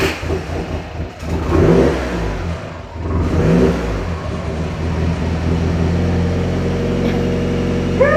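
2017 Subaru WRX's turbocharged flat-four engine just started, revving up briefly twice in the first few seconds and then settling into a steady idle, with the vacuum leak at the open PCV hose barb now plugged.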